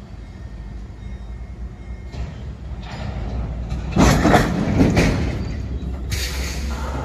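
Boxcars of a freight train starting to roll. A low rumble builds, then loud clanking comes in about four seconds in as the slack runs through the couplers, and a high-pitched screech from the moving train starts near the end.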